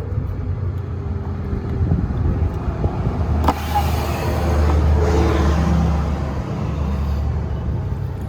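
Steady low vehicle engine rumble that swells between about three and a half and six seconds in, with a sharp click about three and a half seconds in.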